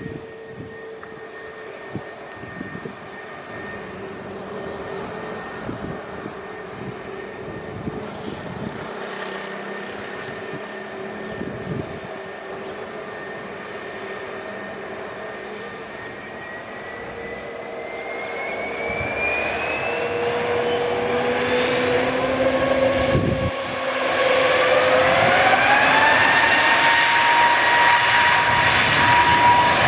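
Airbus A320neo's geared turbofan engines (Pratt & Whitney PW1100G) whining at low power, then spooling up to takeoff thrust: a rising whine that climbs in two steps, starting a little past the middle and again a few seconds before the end, growing much louder as the takeoff roll begins.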